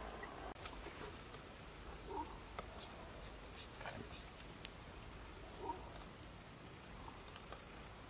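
Steady high-pitched chirring of crickets or other jungle insects, with a few faint clicks from handling.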